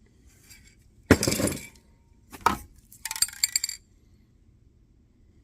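Paint cans being lifted out of a shipping box and set down: a loud scrape about a second in, a sharp knock, then a quick run of bright metallic clinks.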